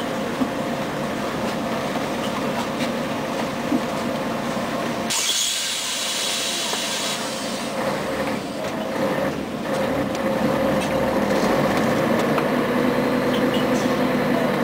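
Interior of a 1996 Scania CN113ALB articulated city bus on the move: the engine and driveline run with a steady whine. A hiss comes about five seconds in and lasts about two seconds, and the running grows a little louder near the end.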